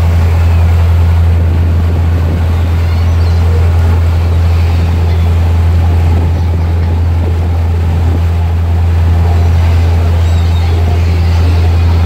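Tour boat's engine running steadily, a deep constant drone, with the rushing of the churned-up wake water over it.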